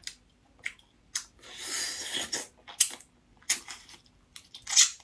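Eating sounds from small cooked sea snails picked out with a toothpick: short wet clicks and smacks from the mouth, with chewing and a longer hiss about two seconds in.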